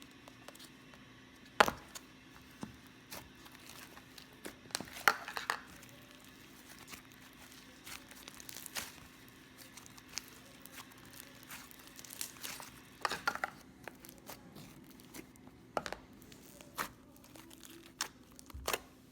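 Slime with broken-up packing peanuts mixed in being squished and stretched by hand: irregular sticky clicks, pops and crinkly crackles, over a faint steady hum.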